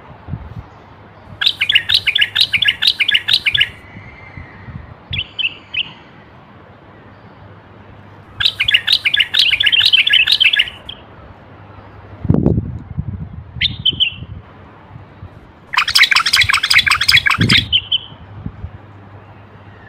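Common bulbul singing: three loud bursts of rapidly repeated high notes, each about two seconds long and about seven seconds apart, with a couple of short phrases between them. A low thud comes about twelve seconds in.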